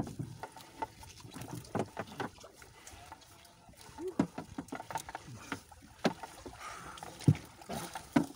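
Fishing net being hauled by hand into a wooden outrigger boat: water splashing and dripping off the mesh, with irregular knocks and taps as the net comes over the side against the hull.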